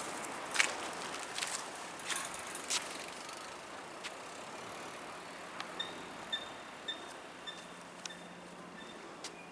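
A few sharp clacks from a train's wheels over rail joints in the first seconds, fading away. About halfway through, the level crossing's electronic warning bell starts ringing, short chimes at an even pace of about two a second.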